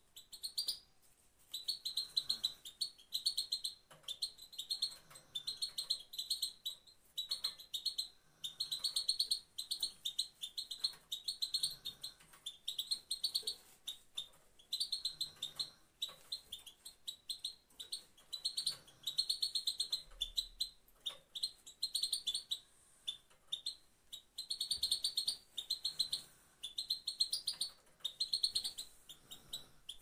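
Female goldfinch giving its repeated 'pat pat' call, used to stir a male to sing. Short bursts of rapid, high, stuttering notes come about once a second throughout.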